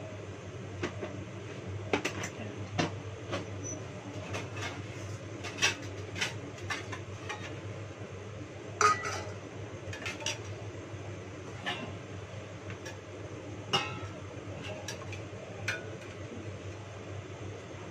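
Pots, pans and metal utensils clinking and clattering as cookware is handled, in irregular knocks, the loudest about nine seconds in. A steady low hum runs underneath.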